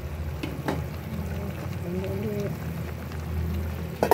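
Pot of chicken pieces simmering in its broth over a low steady hum, with a faint voice in the background around two seconds in. A sharp knock of metal on the pot comes near the end.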